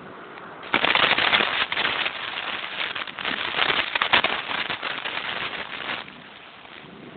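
Loud crackling and rattling noise on a bicycle-mounted camera's microphone as the bike rides along. It starts suddenly just under a second in and drops back to a quieter hiss about six seconds in.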